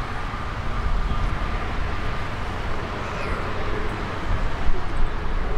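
Airbus A321neo's CFM LEAP-1A turbofans running at idle as the airliner taxis and turns onto the runway, a steady jet hum under a low rumble of wind on the microphone.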